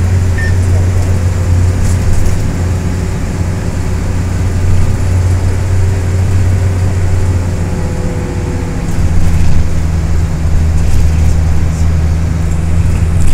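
Green minibus heard from inside the passenger cabin while travelling at over 80 km/h: a loud, steady low drone of engine and road noise. Its tone shifts slightly about nine seconds in.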